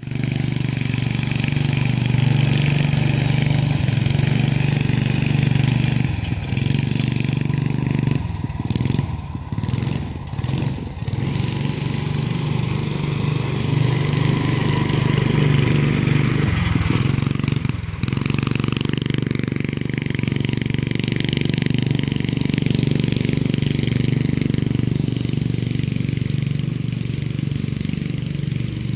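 Heathkit Hilltopper mini bike's small engine running steadily under a rider. The engine note dips and breaks briefly several times about a third of the way in and again just past halfway.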